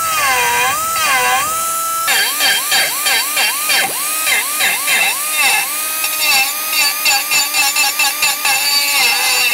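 Die grinder spinning a single-cut carbide burr against cast aluminum, beveling the fractured edge of a motor end bell for welding. Its whine dips in pitch again and again as the burr bites and recovers, with quicker, shorter cuts after about two seconds in.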